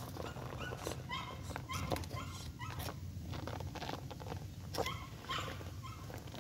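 RC rock crawler's brushed 540 motor and gearbox running with a low steady hum as it crawls over rocks, with small knocks of the tyres and chassis on stone. An animal's short, high yipping calls recur several times through it.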